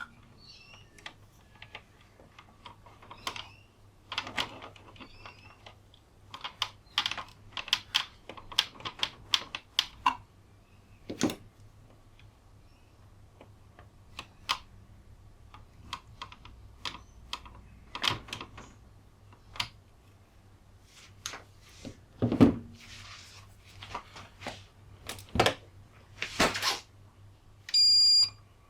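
Irregular clicks and knocks from a UPS and its replacement battery being handled and connected. Near the end the UPS gives a single high electronic beep, about a second long.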